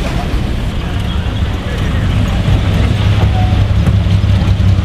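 Classic cars driving slowly past at low speed: a wood-framed Mini estate, then a larger fastback saloon. The low engine hum grows louder over the last couple of seconds as the bigger car comes alongside.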